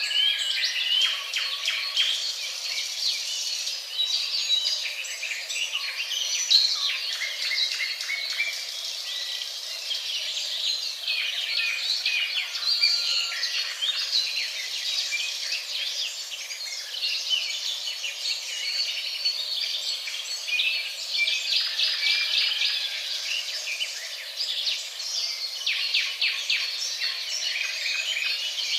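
Many birds chirping and singing at once, a continuous chorus of overlapping short chirps and whistled trills, used as a stock nature-ambience sound effect.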